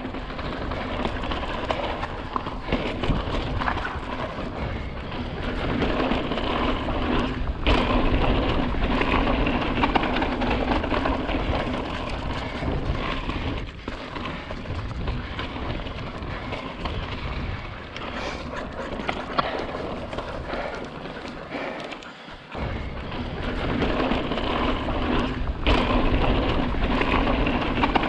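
Wind buffeting a moving action camera's microphone over the rumble of a mountain bike riding across bare slickrock, with a few short knocks from the bike.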